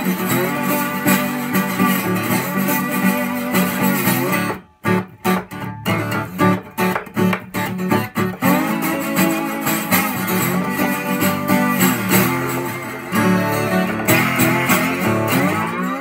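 Seagull S-Series S12+ 12-string acoustic guitar played with a slide: ringing strummed chords with sliding pitch glides, broken about five seconds in by a few seconds of short, choppy strokes.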